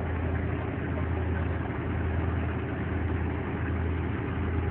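Fishing boat's engine running steadily, a constant low drone.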